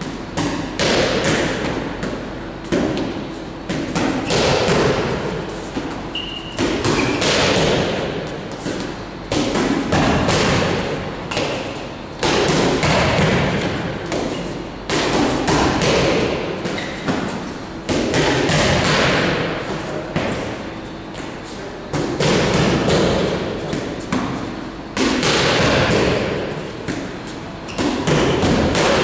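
Boxing gloves hitting focus mitts in fast combinations: sharp slaps in flurries that come about every two to three seconds, ringing briefly in a hard-walled room.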